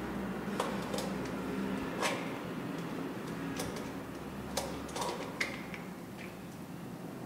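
Scattered sharp clicks and taps of a screwdriver working the screw terminals of the MCBs in a distribution board, about seven in a few seconds, at irregular intervals.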